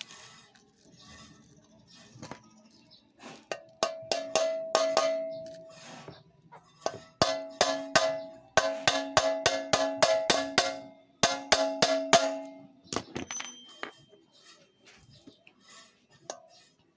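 Hammer striking a metal tool in three runs of quick blows, several a second, each blow leaving a metallic ring, the hammering that drives wet paper into the bore of a scooter's crankcase bearing to push the bearing out.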